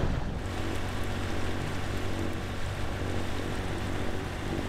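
Sailboat's inboard engine running steadily with a low, even hum as the boat motors out on calm water.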